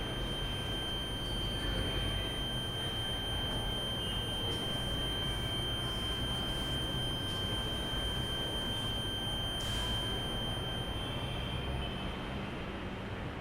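A steady, high-pitched electronic-sounding tone held over low rumbling noise, with a fainter second tone that stops about eleven seconds in.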